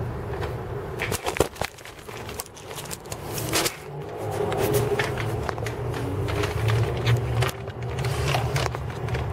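Camera handling noise as the camera is moved around a cardboard nest box: rubbing, clicks and knocks. A steady low rumble runs underneath.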